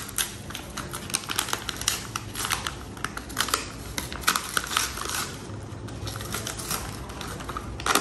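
Paper bag of cane sugar being opened by hand: the paper crinkles and tears in a quick string of sharp crackles, thinning out after about five seconds, with one louder crackle near the end.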